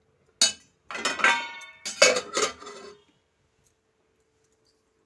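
Kitchen dishes and utensils clattering: one sharp knock, then about two seconds of clanking and clinking with a ringing tone, stopping about three seconds in.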